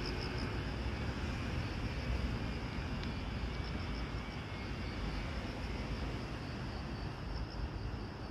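Grass insects chirping in a steady, high, pulsing trill over a constant low rumble of distant traffic or wind.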